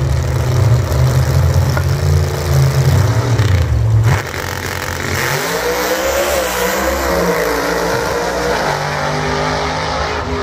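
Two drag racing cars running loudly on the start line, then launching about four seconds in and accelerating away down the strip, engine pitch rising as they pull away.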